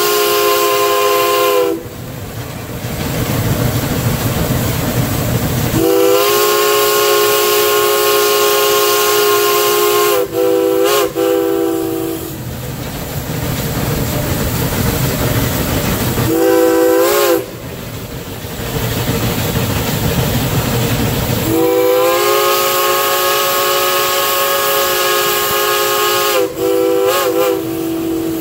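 Steam whistle of a geared steam locomotive sounding a chord in repeated signals: long blasts, two of them ending in two quick short toots, and one short toot. Between blasts the locomotive's working rumble and hiss carry on.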